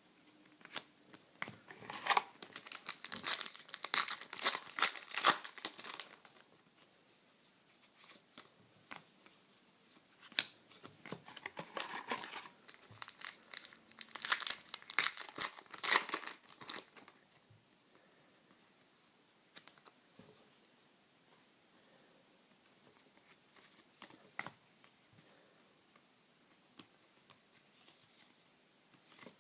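Trading card pack wrappers being torn open and crinkled, in two loud bouts of crackling a few seconds long, followed by quieter clicks and rustles of the cards being handled.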